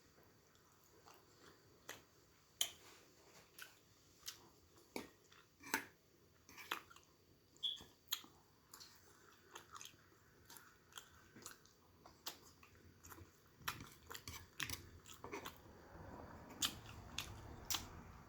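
A person chewing and biting food close to the microphone: an irregular string of wet clicks and smacks, getting louder and fuller over the last few seconds.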